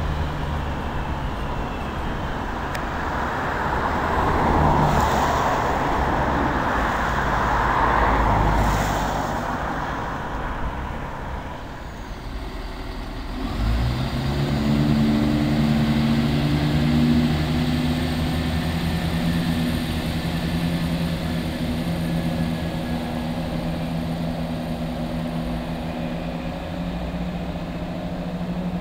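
A Class 323 electric multiple unit running along the platform, a rushing rail and traction noise that swells and fades. After a sudden cut about fourteen seconds in, a Class 170 Turbostar diesel multiple unit's engines run with a steady low drone.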